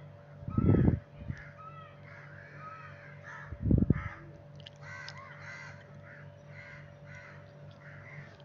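Crows cawing over and over in short harsh calls, over a steady low hum. Two loud dull thumps cut in, about a second in and again near four seconds.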